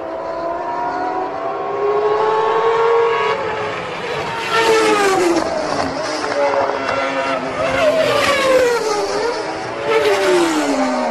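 Formula One cars' racing engines at high revs as the cars come past one after another. The engine pitch climbs at first, then drops steeply several times as each car goes by or lifts off.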